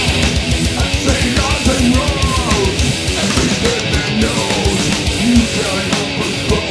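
Heavy metal music: electric guitar played over a fast drumbeat.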